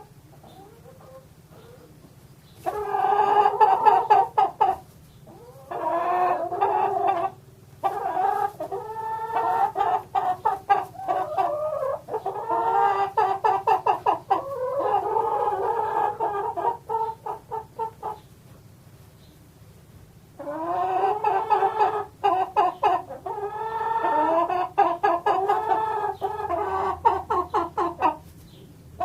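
Hens clucking in long runs of rapid clucks mixed with drawn-out calls. The clucking starts a few seconds in, breaks off for a couple of seconds past the middle, then starts up again.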